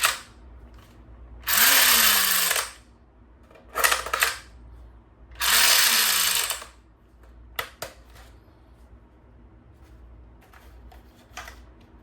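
Battery-powered toy gun firing two bursts of about a second each, roughly four seconds apart. Short clicks come between and after the bursts.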